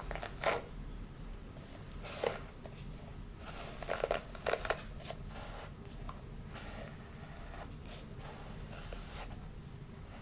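Hair rustling and scratching close to the microphone as it is combed and massaged: a run of irregular strokes, with louder ones about half a second in, just after two seconds, and a cluster around four to five seconds.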